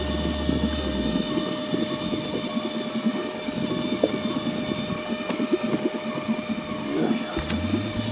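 Steady wind and water noise around a small boat on open sea, with a faint steady hum. A low rumble dies away about a second in and returns near the end.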